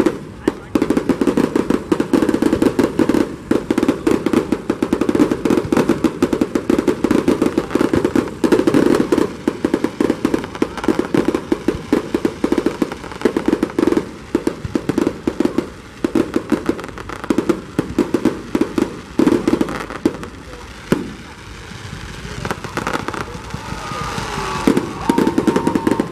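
Fireworks display going off in a dense, rapid run of bangs and crackles. The bangs thin out for a few seconds about twenty seconds in, then pick up again.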